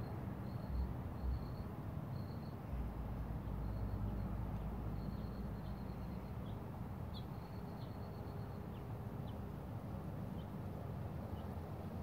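Outdoor ambience: a low steady traffic rumble, with a high pulsed chirping in short bursts that repeat about every second and a few brief single high chirps in the second half.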